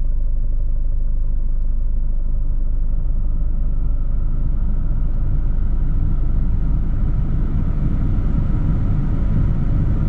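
Isuzu MU-X turbodiesel idling in park at about 750 rpm, heard from inside the cabin, with the air-conditioning blower being turned up from minimum to full: the rush of air from the vents grows louder over the first few seconds and then holds steady over the engine's low rumble.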